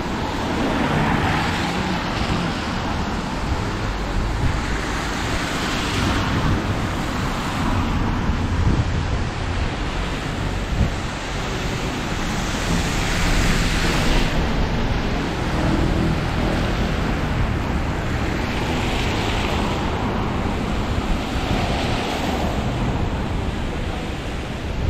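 Rainy city street noise: a steady wash of rain and traffic on wet road, with a hiss that swells and fades several times as vehicles pass, over a low rumble of wind on the microphone.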